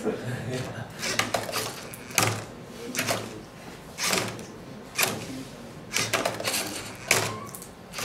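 LEGO Mindstorms NXT Rubik's Cube solving robot at work: the robot tips the cube half out of its cradle and lets it drop back, and its turntable rotates the cube. Plastic parts and the cube clatter about once a second.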